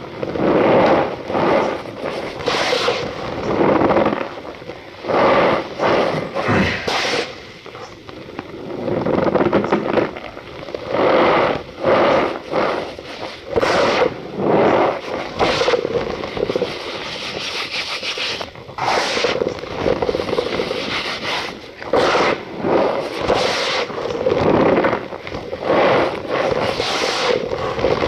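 Cornstarch powder squeezed and pressed by hand, giving repeated crunchy squeaks, about one squeeze every second or so.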